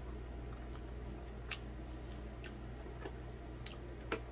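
Scattered light clicks of a metal fork against a black plastic compartment food container while eating, five or six in all, the loudest near the end, over a steady low hum.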